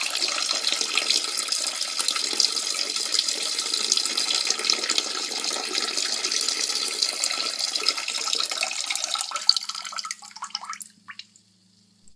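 A steady stream of liquid splashing, standing for a reindeer urinating. It thins out and stops with a few last drips about ten to eleven seconds in.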